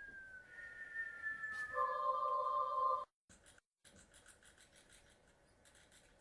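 A whistle sliding slowly down in pitch, then a steady buzzing tone for about a second that cuts off abruptly. After it comes faint, light scratching.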